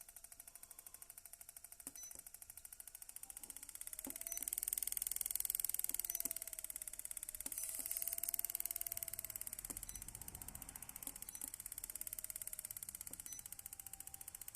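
Hammer treadmill console keys being pressed one after another every second or two, each press giving a click and a short high beep as the key registers. From about four seconds in, a steady mechanical hiss joins them, along with a mid-pitched whine that bends up and down.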